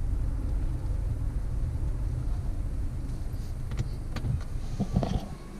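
Low road and tyre rumble inside a Honda Accord Sport's cabin while driving, its tyres at 40 psi. The front-end noise is only slight. A few sharp clicks come in the last couple of seconds.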